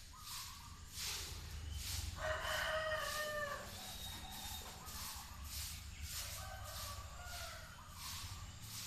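A bird's long call, lasting about a second and a half a little over two seconds in, followed by fainter, shorter calls, over a pulsing hiss.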